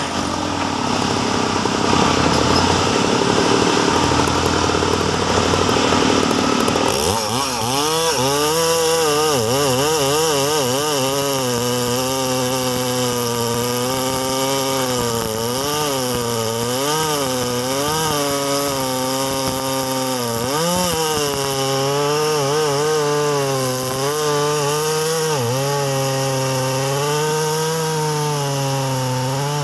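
Husqvarna two-stroke chainsaw bucking a tualang log. For about the first seven seconds the sound is harsher and noisier; after that the engine's pitch keeps dipping and recovering as the chain loads and frees in the cut.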